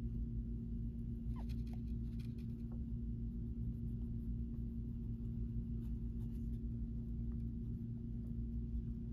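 Wax crayon scratching across a coloring-book page in short, faint strokes, over a steady low hum.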